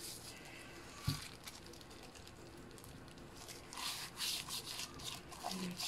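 Plastic-gloved hand rubbing salt into the skin of a whole raw fish in a tray: soft rubbing and scraping strokes, strongest in the second half, with a single light knock about a second in.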